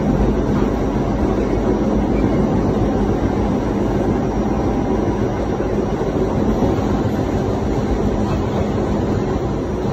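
New York City subway train running, heard from inside the car: a loud, steady rumble and rail noise with a faint constant hum underneath.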